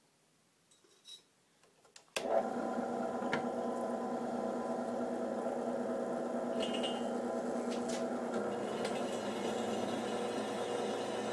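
A few faint clicks, then a drill press motor switches on about two seconds in and runs steadily with a hum and whine. Near the end the sound shifts as the twist drill comes down onto the steel stand.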